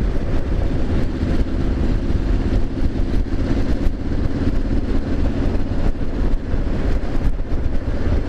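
Triumph Street Scrambler 900's parallel-twin engine running steadily while the bike cruises along a road.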